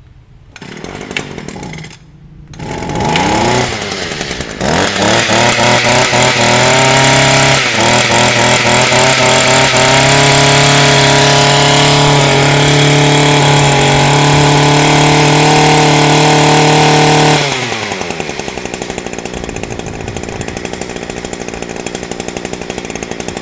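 Echo 22cc two-stroke brush cutter engine pull-started. It catches about two and a half seconds in and revs up, is held at high revs for about ten seconds with a couple of brief dips, then drops back to a steady idle, running smoothly.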